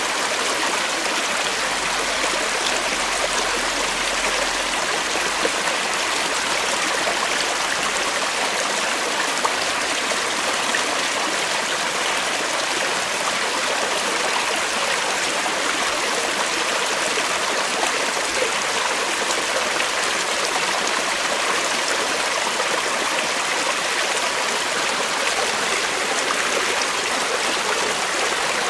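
Creek water flowing over rocks, a steady babbling rush.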